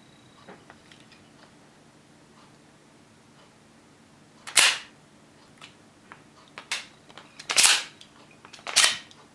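Mechanism of a 3D-printed plastic Hino-Komuro pistol model snapping shut three times, loud and sharp, with small clicks of the parts being worked in between.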